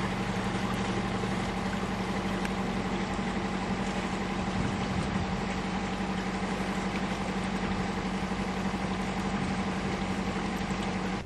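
Sailboat's inboard auxiliary engine running steadily under way, an even hum with a strong low drone.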